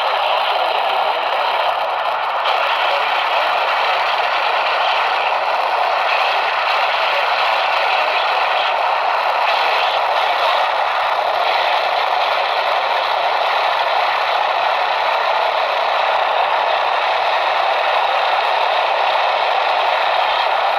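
Steady hiss of radio static from a receiver tuned to a weak, poorly received station, with a faint steady tone underneath.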